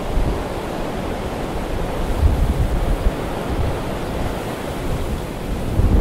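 Blizzard wind blowing hard and steadily, gusting with low rumbles of wind buffeting the microphone about two seconds in and again near the end.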